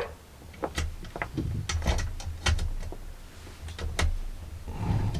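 Irregular clicks and knocks of chainsaw parts and tools being handled on a workbench.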